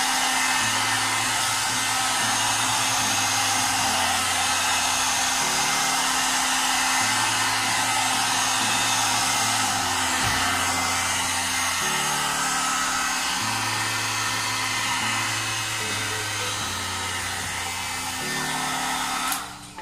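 Hot air brush (hair dryer and brush in one) blowing steadily with an even whoosh, stopping abruptly near the end.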